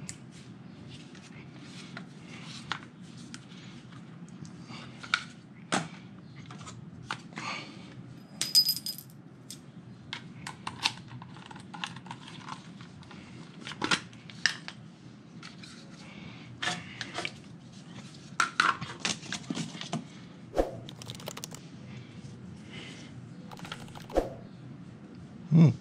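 Irregular clicks, clacks and light knocks of hard plastic roof-rack foot pieces being handled and snapped together by hand, with a short high ring about eight seconds in.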